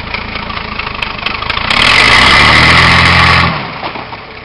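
Nissan Patrol Y60's 4.2-litre diesel engine running at low revs, then revved hard for about two seconds under load as the truck climbs out of a hole, before dropping back to low revs.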